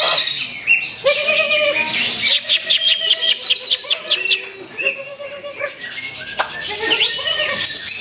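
Cucak hijau (green leafbird) singing a varied, busy song of chirps and glides. About two and a half seconds in comes a quick run of repeated notes, followed by a long high whistle. Other caged songbirds and people's voices blend in behind.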